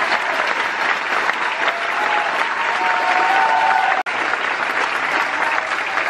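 Graduation audience applauding loudly, with a few held cheering voices over the clapping for the first four seconds. The sound breaks off for an instant about four seconds in, then the applause carries on.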